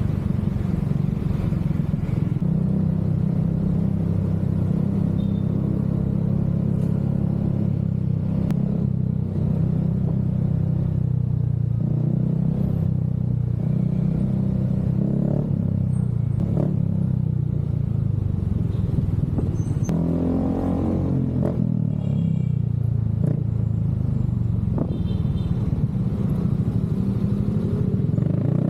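Motorcycle exhaust running at a steady low note, with one quick rev about two-thirds of the way through that rises and falls in pitch.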